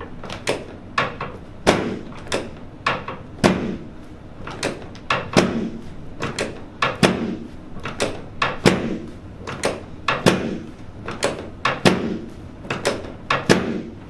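A chiropractic table knocks sharply over and over, about two times a second, as the chiropractor gives a run of quick hand thrusts on the patient's pelvis and lower back. Each knock has a short low thud.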